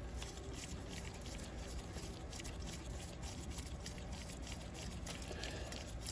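Faint, scattered light clicks of small metal engine parts being handled, over a steady low background hum.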